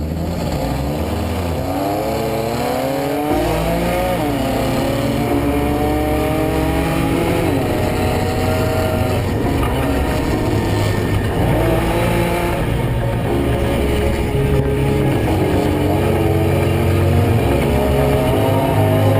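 Off-road prerunner race truck's engine under hard acceleration, its pitch climbing and dropping back repeatedly as it shifts through gears, over a low rumble.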